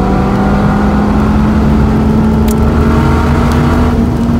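Dodge Viper's V10 engine pulling steadily under load on a race track, its pitch rising slowly as the car accelerates, heard from inside the cabin.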